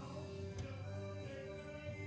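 Background music with sustained, held chords, and one brief click about half a second in.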